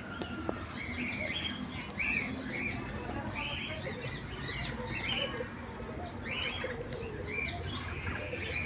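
Birds chirping in a poultry run: many short, high chirps, one after another, with a low cooing call about seven seconds in.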